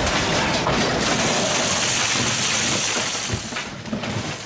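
Crash aftermath: loose gravel and stones spilling and clattering down over toy trucks and a toy engine in a dense rushing hiss, which fades away near the end.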